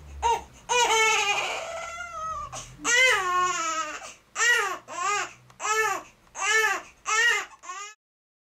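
Baby crying: two longer wails, then a run of short, high, rising-and-falling cries under a second apart, cut off abruptly near the end.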